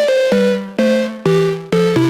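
Background electronic music: synthesizer notes with a bass line, a new note struck about every half second and fading away before the next.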